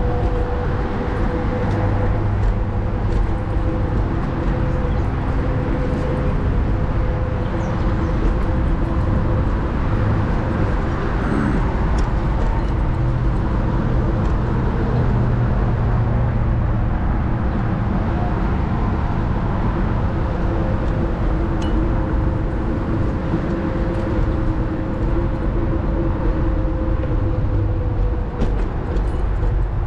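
Varla Eagle One electric scooter under way: steady wind and road rumble on the rider's microphone, with a constant even whine from the scooter's motors running through it.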